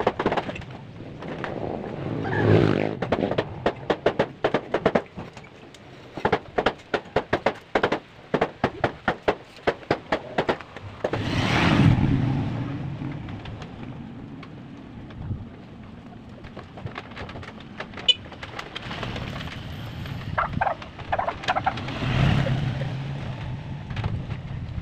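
Rapid sharp knocking, about four knocks a second, through roughly the first ten seconds, with a few gusts of wind rumbling on the microphone.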